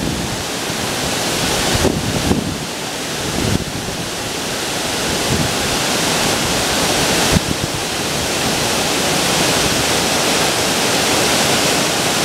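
Creek water rushing steadily over a low falls, a constant hiss of falling water. Wind gusts rumble on the microphone now and then, most in the first few seconds.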